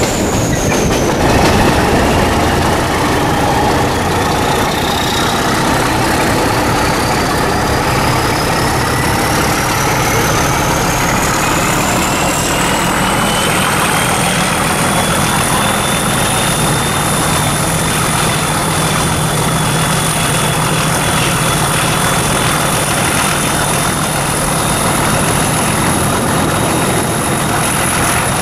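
Class 31 diesel locomotives working a train, heard from an open carriage window: steady engine and wheel noise under a turbocharger whistle. The whistle rises in pitch over the first fifteen seconds or so as the engines open up, then holds steady.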